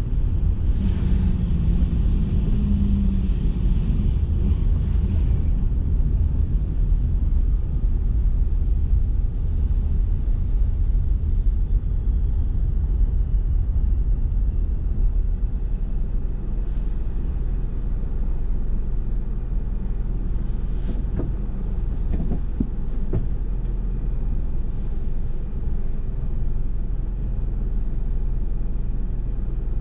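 Car road noise and engine rumble heard inside the cabin while driving on a highway. About halfway through it settles into a steadier, slightly quieter hum as the car slows to a stop behind traffic.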